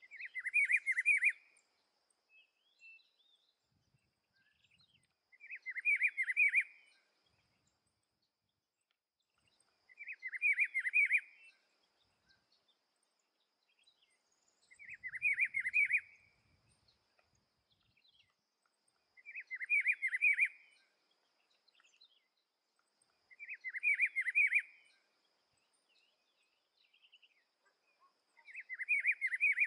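Rufous-browed peppershrike (pitiguari) singing: a short phrase of quick warbled notes, about a second and a half long, repeated seven times every four to five seconds.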